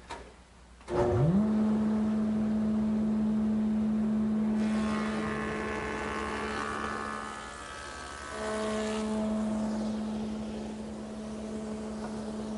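Table saw motor starting and quickly spinning up to a steady hum. A board is then fed through the blade for about four seconds, a harsher cutting sound over the hum, before the saw runs on freely.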